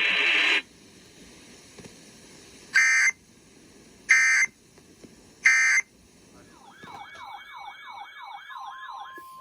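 Emergency Alert System end-of-message data bursts: three short, harsh electronic buzzes a little over a second apart, after half a second of hissing static. Then an electronic siren-like warble, rising and falling about three to four times a second, with a steady beep joining it near the end.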